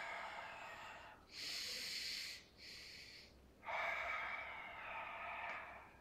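A man's deep, controlled breathing during a Pilates bridge with a leg lift: four long breaths in and out, each about one to two seconds, paced with the movement.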